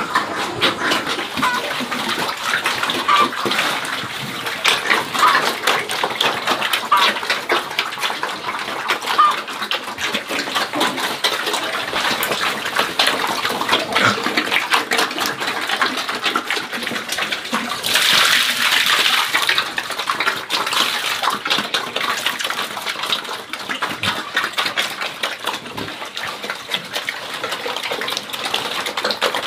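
Running water splashing steadily, with a brief louder gush about eighteen seconds in.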